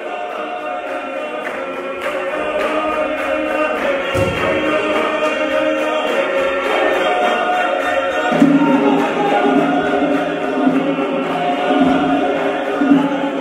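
Background music: a choir singing in several-part harmony over a light beat of about three ticks a second, with a low held bass note coming in about eight seconds in.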